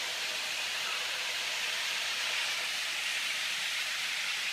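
A steady, even hiss with no rumble, rhythm or clatter beneath it.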